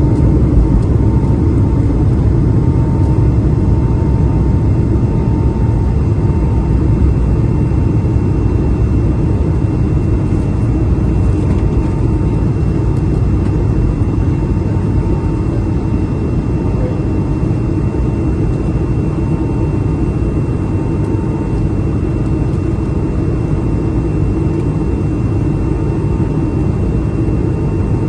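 Steady jet-engine rumble from an Airbus A220-300's Pratt & Whitney geared turbofans under power, heard inside the cabin, with a faint steady whine over the rumble. The level eases off slightly toward the end.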